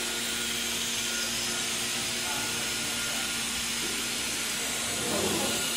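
Steady machine hum with a high, even hiss from an idle ATC CNC router and its controller, the spindle not turning. Faint voices come in near the end.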